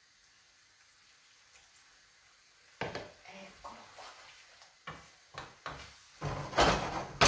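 A wooden spoon stirring a thick risotto in a pan: a few light knocks against the pan, then a louder stretch of scraping and stirring near the end.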